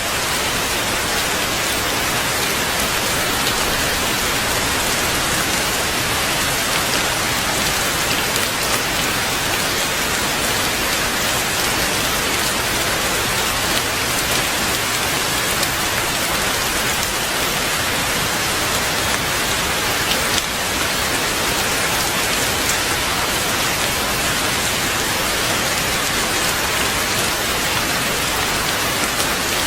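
Heavy rain falling steadily, a dense even hiss of countless drops with no pauses.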